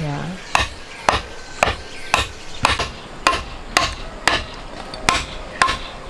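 Repeated chopping blows, evenly paced at about two a second.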